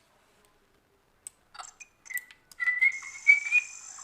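Playback of a forest ambience sound effect: after a few clicks, a high whistle rising slightly in pitch, then a steady high-pitched insect drone coming in about three seconds in.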